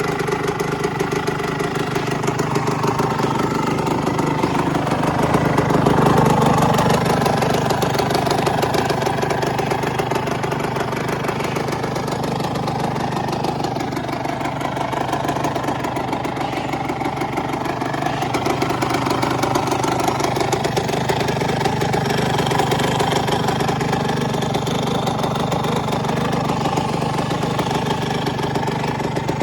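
1996 Suzuki RM125's single-cylinder two-stroke engine idling, with a short blip of throttle about six seconds in.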